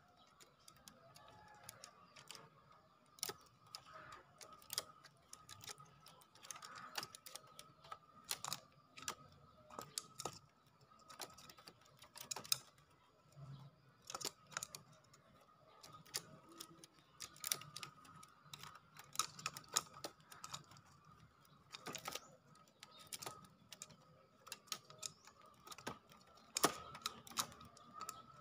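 Irregular sharp taps and clicks, sometimes several close together, over a faint steady high tone.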